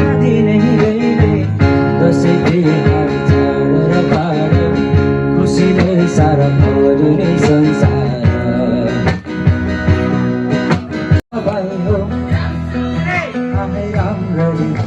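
Background song with guitar and a singing voice. The sound drops out for an instant about eleven seconds in.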